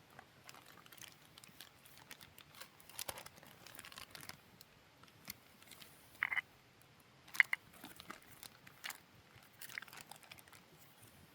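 Scattered short crinkles, clicks and rustles of small objects being handled close to the microphone, over a quiet background. Two sharper clicks come about six and seven seconds in.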